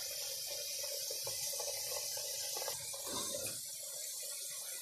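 Pot of Swiss chard and tomato stew simmering on a gas burner: a steady, soft, watery hiss.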